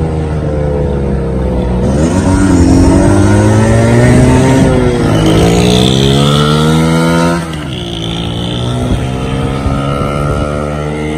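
A motor vehicle's engine accelerating: its pitch climbs and then falls back several times, as at gear changes, and it eases off sharply about seven and a half seconds in.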